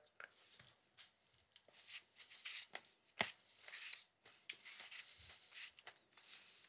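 Faint, short rasping strokes of a hand peeler taking the skin off a red apple, with a few soft clicks in between.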